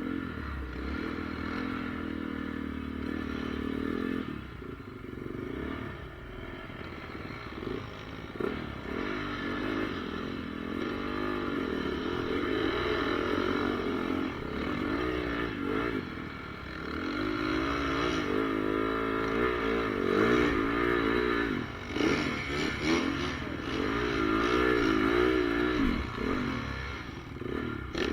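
Motocross bike's four-stroke single-cylinder engine, a 2014 Honda CRF450R, ridden on a track, its pitch rising and falling over and over as the throttle is opened and shut. It gets louder in the second half.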